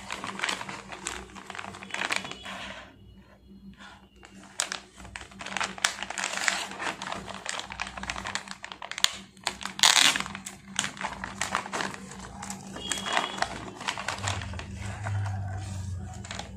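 Clear plastic packaging crinkling and rustling in irregular bursts as it is handled and unwrapped, loudest about ten seconds in.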